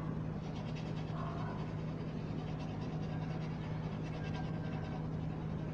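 Rapid scraping strokes on the copper tubing of a window air-conditioner compressor, rubbing off thick dirt to bare copper for a ground test, over a steady low hum.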